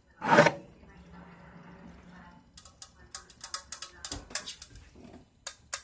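A short loud burst, then fingers tapping and clicking on an aerosol can of glass cleaner, in quick irregular taps through the second half.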